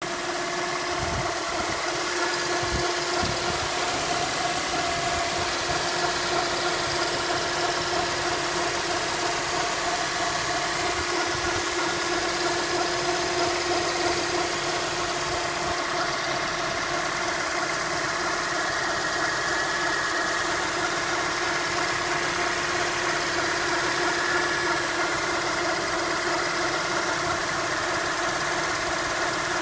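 Honda F20B5 2.0-litre four-cylinder engine idling steadily while warming up, at around 1000–1250 rpm. It carries the intermittent grinding-like noise that the owner hears only at this stage of warm-up, and not when the engine is fully warm.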